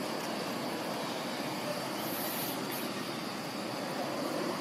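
Steady outdoor background noise with no single clear source, and a brief high hiss about two seconds in.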